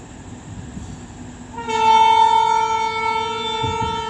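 Horn of a WAG-12B electric freight locomotive sounding one long, steady blast that starts a little under two seconds in, over the low rumble of the approaching train.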